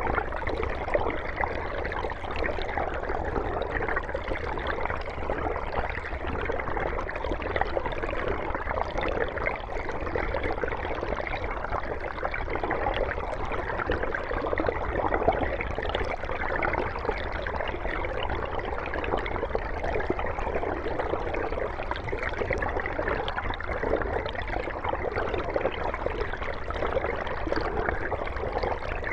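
Mountain stream running over rocks: a steady rushing and gurgling of flowing water.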